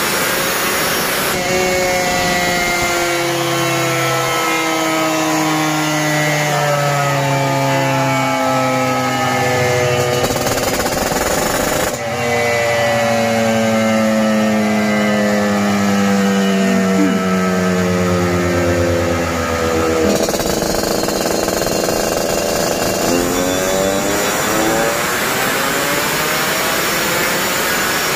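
Yamaha RX-King 135 cc two-stroke single-cylinder engine running hard on a dynamometer through an aftermarket racing exhaust. It is held at high revs with the pitch sliding slowly down over several seconds, twice, then climbing again near the end.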